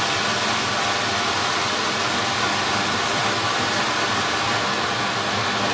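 Large anar (flower pot fountain firework) burning with a steady, loud hiss.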